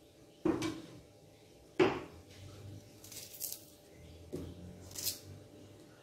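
Two thumps as pieces of fresh root are dropped into a plastic blender jug, then a few light scrapes of a small knife cutting and peeling more root over the jug.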